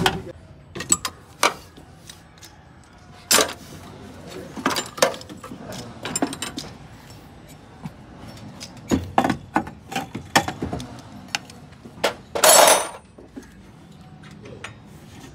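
Metal hand tools and loose engine parts clinking and knocking at irregular moments as a mechanic works at the timing-belt end of a Suzuki Mehran engine, with a louder half-second metallic clatter near the end.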